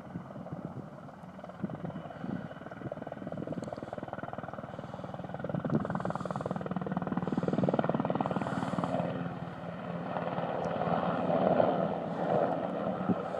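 Helicopter flying overhead, its rotor blades chopping rapidly, growing louder as it comes nearer.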